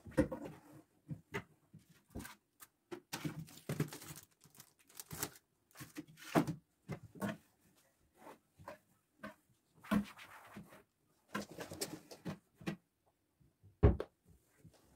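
Cloth wiping the shelves inside a cabinet: irregular rubbing and scraping with light knocks on the shelf boards, and a sharper knock near the end as the cabinet door is pushed shut.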